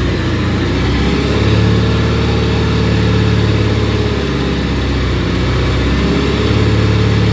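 Engine of a homemade hydraulic mini crane running steadily, its note sagging and recovering a few times as the hydraulics take load while the boom is set down onto its rest.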